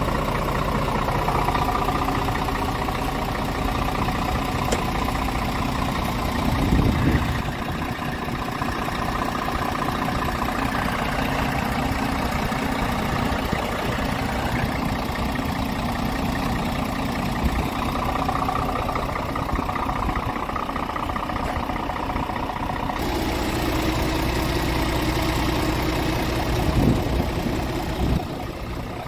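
Scania R truck's diesel engine idling steadily, with a couple of brief handling knocks.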